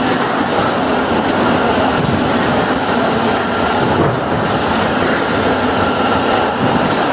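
Automatic motor-oil filling and capping line running: chain conveyors carrying plastic oil bottles, with a steady dense mechanical clatter.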